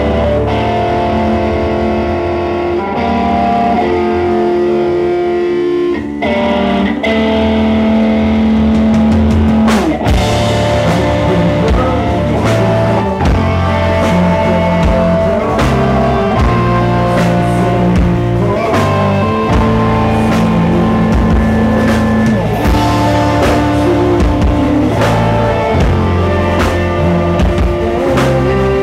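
Live rock band playing loud: electric guitars and bass hold ringing notes with only scattered drum hits at first, then about ten seconds in the drum kit comes in hard and the full band plays on together.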